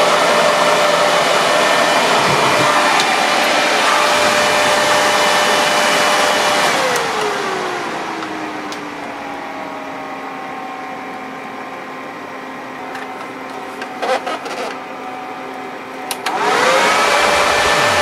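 12-volt electric fan running on high with a steady whine. About seven seconds in it is switched down: the whine falls in pitch and settles lower and quieter. Near the end, after a couple of switch clicks, it is switched back to high and the whine rises quickly back to full speed.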